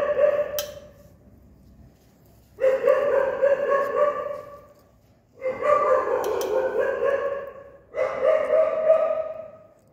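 A dog crying out in long, drawn-out, level-pitched cries of about two seconds each. One cry is already sounding and stops under a second in, and three more begin about 2.5, 5.5 and 8 seconds in.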